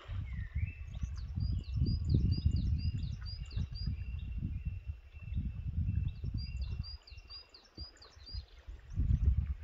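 Wind buffeting the microphone in gusts, with small birds singing quick falling chirps over and over.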